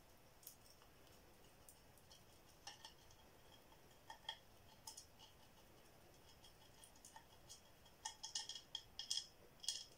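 Faint, scattered small clicks and ticks from a stiff plastic bristle brush dabbing epoxy resin in among hard crystal pieces. The clicks come quicker and louder after about eight seconds.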